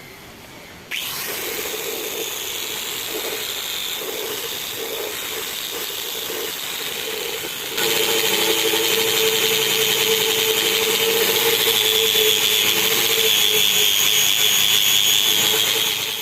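Handheld electric power tool running steadily while cleaning a diesel engine's cylinder head. It starts about a second in, gets louder about eight seconds in and stops near the end.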